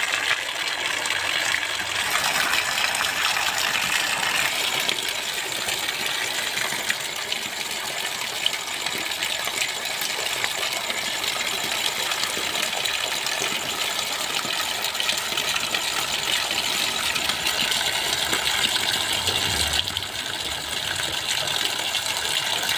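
Water gushing and splashing steadily from a pipe fed by a running electric water pump.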